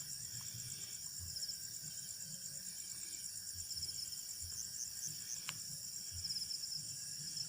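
Crickets and other insects chirping in a steady high-pitched chorus, with short pulsed trills repeating through it.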